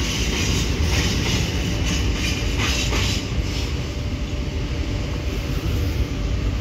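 Romanian CFR class 41 electric locomotive standing at the platform, giving a steady low drone. Bands of hissing come and go over it during the first three seconds or so.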